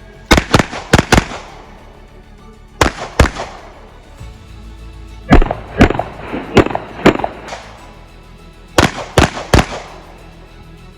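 Glock pistol shots fired in quick strings with pauses between: four fast shots at the start, two about three seconds in, a slower string of about six in the middle, and three more near the end.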